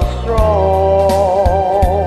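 A singer holds one long note with vibrato over a karaoke backing track of sustained bass notes and a few light percussive beats.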